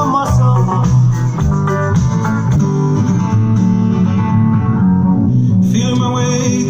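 A pop song with guitar and a strong bass line, played back through a pair of JBL Control 1 compact monitor speakers with 4-inch woofers and no subwoofer.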